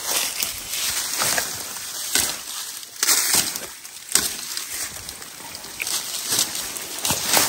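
Dry grass, twigs and leafy brush rustling and snapping as people push through dense undergrowth on foot, with irregular crunching footsteps.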